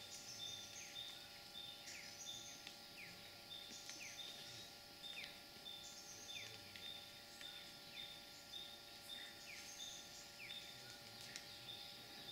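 Faint natural ambience of small wild animals calling: a short high note repeats about twice a second, with quick falling chirps and a brief cluster of higher notes every couple of seconds.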